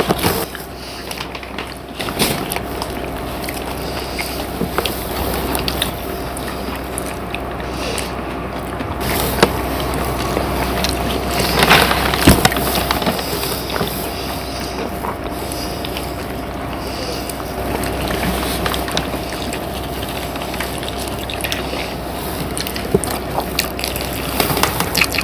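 Close-miked eating of doi fuchka, yogurt-filled crisp puris: wet chewing and crunching, with small clicks of steel spoons against foil plates.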